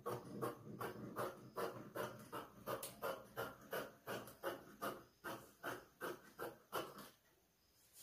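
Scissors snipping through layered net fabric in a steady run of cuts, about three snips a second, stopping about seven seconds in.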